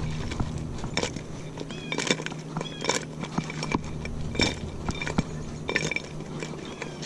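Sauced chicken wings being tossed in a glass mixing bowl, tumbling and knocking against the glass in irregular clatters.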